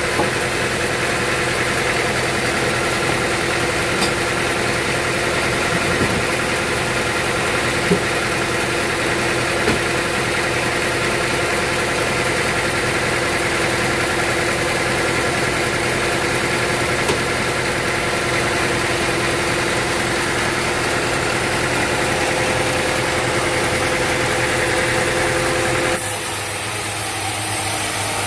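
Sawmill machinery's engine running steadily at a constant speed, with a few light knocks. The sound changes abruptly near the end.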